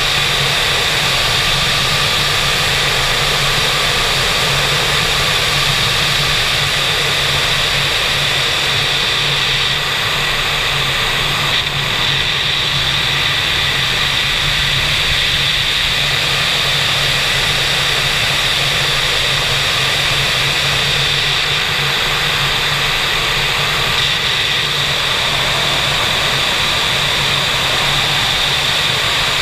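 Airflow rushing over a wing-mounted camera on an ASK 21 glider in flight, a steady loud roar with a thin high whistle running through it. The glider has no engine, so the sound is wind, not a motor.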